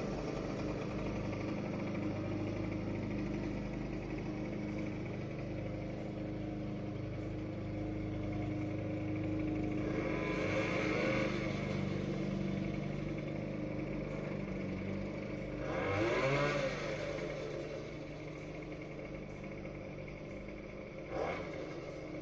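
Small lawn-equipment petrol engine running steadily, swelling louder with a bending pitch twice, about ten and sixteen seconds in, and a short sharp sound near the end.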